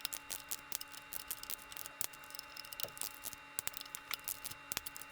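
Faint, irregular light clicks of a ratcheting torque wrench, several a second, working the Ducati 848 engine's variable timing cam pulley bolts down to 10 Nm.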